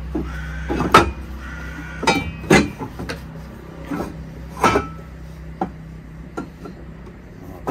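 Metal engine parts clanking and knocking as they are handled and set into place in the engine bay: a series of sharp clanks, the loudest about a second in, over a steady low hum.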